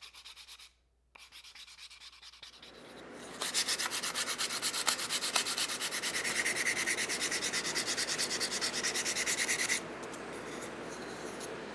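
Hand sanding a carved wooden pie server of curly soft maple and walnut with sandpaper on a sanding block. Faint rubbing at first, then about three seconds in it turns into fast, even back-and-forth scrubbing strokes, which ease to a softer rub near the end.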